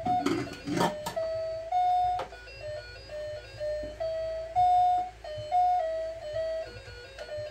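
A simple melody of plain, held electronic tones stepping from note to note, like a music box or toy jingle. A short rustling burst comes in the first second.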